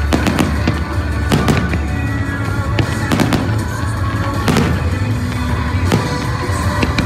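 Fireworks going off in a string of sharp bangs and crackles over loud music with a heavy, steady bass.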